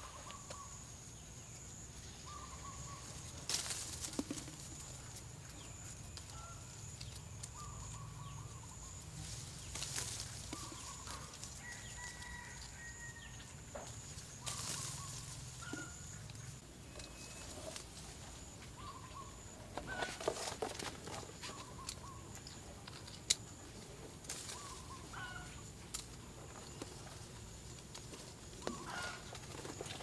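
Chickens clucking now and then in short calls, with intermittent rustling and a few sharp cracks, over a steady high-pitched whine.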